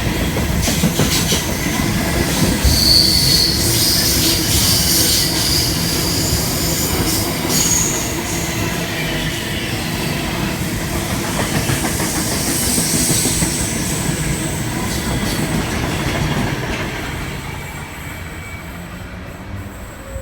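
Electric intercity train running in along the platform: wheels rumbling on the rails, with high squeals from the wheels and brakes about three seconds in and again near the middle. The sound fades over the last few seconds as the train slows.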